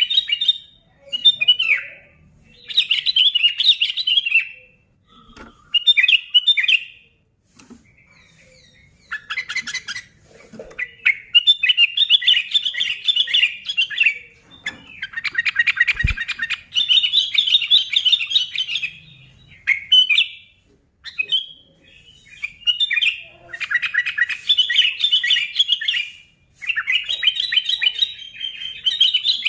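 Sooty-headed bulbul (kutilang) singing energetically: bursts of quick chattering chirps, each a second or two long, one after another with short pauses.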